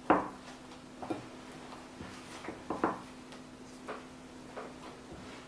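Knocks and taps of a mixing bowl being worked as naan dough is mixed by hand: one sharp knock right at the start, then a handful of lighter, irregular taps, over a faint steady hum.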